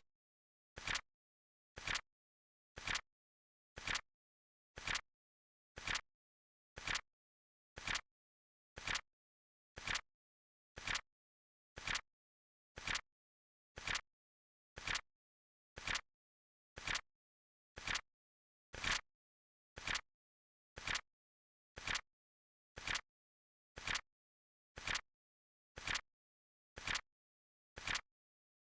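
Flip-clock timer's flip sound effect: a sharp double click, a light click then a louder one, once every second, evenly spaced.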